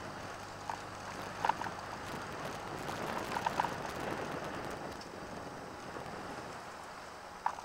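Mazda RX-7 (FD3S) moving slowly, heard through a roof-mounted camera: a steady rush of wind and tyre noise over a faint engine hum, with a few light ticks.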